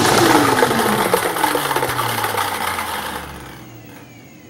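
Lottery drawing machine's motor winding down after being switched off, its hum falling steadily in pitch and fading away over about three and a half seconds.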